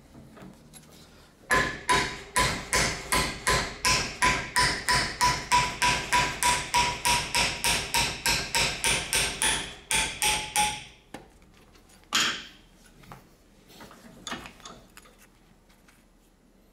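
Hammer blows on a fusion-welded aluminum lap-weld coupon held in a vise, about three a second for some nine seconds, each with a metallic ring: the top plate is being beaten over in a peel test of the weld. One more blow follows shortly after, then a few light knocks.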